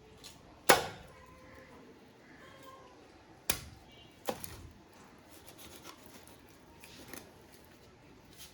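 Knife chopping through a hilsa fish on a cutting surface: a few sharp knocks, the loudest about a second in and two more near the middle, with fainter scrapes and ticks between.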